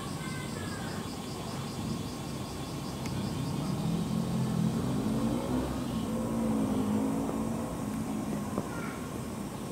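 A motor vehicle's engine running past nearby, growing louder from about three seconds in and fading away near the end.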